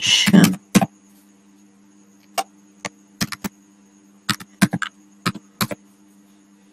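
Computer keyboard keys being typed on: short sharp clicks, singly and in quick clusters, from about two seconds in, over a steady faint hum. A brief spoken word sounds at the very start.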